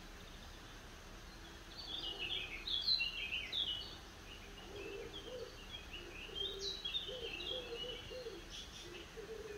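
Small songbird singing a quick run of high notes about two seconds in, then a softer run later. From about halfway, a dove coos low and repeatedly.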